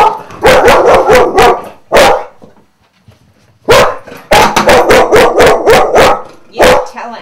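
Dog barking at the closed front door as if at a visitor. There is a quick run of barks, a pause of about a second and a half near the middle, then another run and a single bark near the end.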